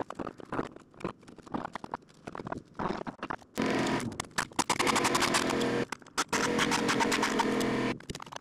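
Scattered crunching steps on gravel, then from about halfway a loud, fast, machine-like rattle that pauses briefly and starts again.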